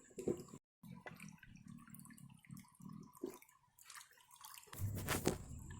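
Faint water drips and small splashes, with a slightly louder stretch near the end.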